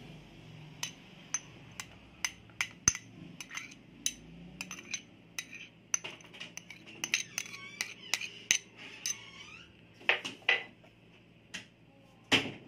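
Metal spoon clinking and scraping against a ceramic plate as chopped garlic is knocked off it: a run of irregular sharp clinks, with the loudest knock near the end.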